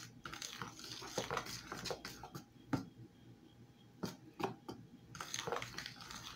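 A utensil stirring and scraping thick pancake batter in a plastic bowl, with irregular soft clicks and scrapes against the bowl's side. It eases off briefly midway and picks up again near the end.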